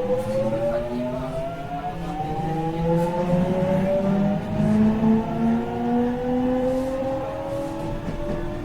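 Toshiba GTO-VVVF inverter of a JR West 207 series 1000-subseries electric train whining as the train accelerates, several tones climbing slowly together over the running rumble. The uploader files this set as an unusual-sounding car.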